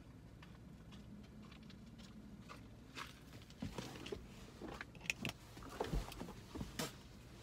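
Quiet car cabin with a faint low hum. From about three seconds in come a string of soft knocks, bumps and clothing rustles as a person climbs into the driver's seat and settles in.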